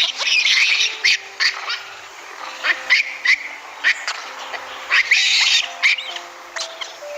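Animal calls: repeated harsh, hissy bursts and short sharp cries, with a faint steady tone underneath.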